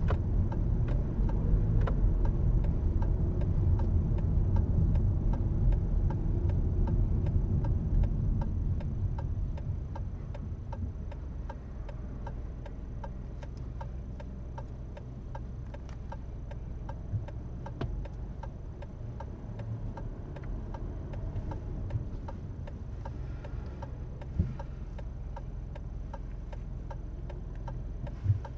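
Car's turn-signal indicator ticking steadily in the cabin, the left indicator set for a left turn at an intersection. Under it, low engine and road rumble that dies down after about eight seconds as the car slows to a stop.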